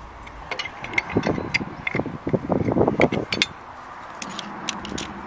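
Metal clicks, clanks and scraping as the threaded end gland of a mini digger's hydraulic cylinder is worked loose with a pipe wrench and turned off. The clanking is densest between about one and three and a half seconds in, with a few lighter clicks near the end.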